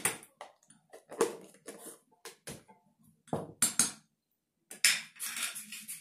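A spoon scraping and tapping against a saucepan as margarine is spooned in: irregular short knocks and scrapes, in small clusters with pauses between them.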